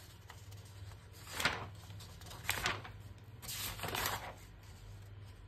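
Pages of an old newsprint magazine being turned by hand: three paper rustles, about a second apart, the last one longer.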